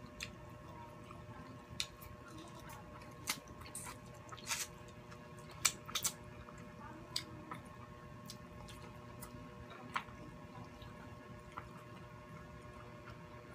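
Close-up eating sounds: scattered wet clicks and smacks of chewing and of fingers working shell-on baked prawns, coming irregularly over a steady faint hum.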